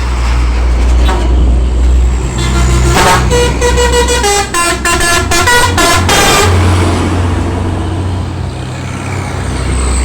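A container truck's telolet horn playing a quick run of stepped musical notes for about four seconds, starting a couple of seconds in, over the low steady running of the truck's engine.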